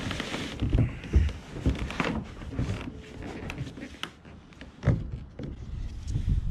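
Person climbing into and settling in a plastic sit-on-top kayak: clothing rustling and irregular knocks and thumps against the hollow hull, loudest about a second in and again just before the end.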